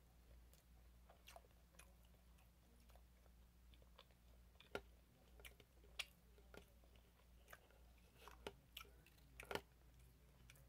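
Faint chewing of fried chicken strips, with a scatter of small sharp mouth clicks and smacks that grow more frequent about halfway through.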